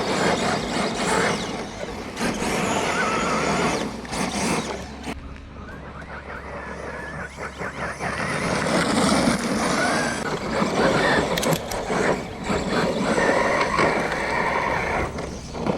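Brushless electric motor of a 6s two-wheel-drive Traxxas Slash RC truck whining up and down in pitch as it is driven hard, with tyres spinning and scrabbling on gravel. It eases off for a couple of seconds about a third of the way in, then picks up again.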